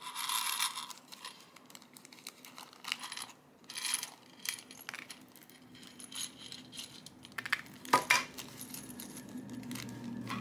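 Flower-shaped diamond-painting drills clicking and rattling against a plastic sorting tray and each other as they are tipped and sorted. Sharp clicks come in scattered clusters, loudest about eight seconds in.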